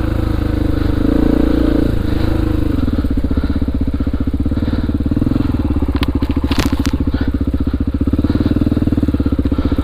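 2002 Honda XR400R's single-cylinder four-stroke engine running at raised revs, then dropping about two and a half seconds in to a slow, even idle. A few sharp clicks come about six to seven seconds in.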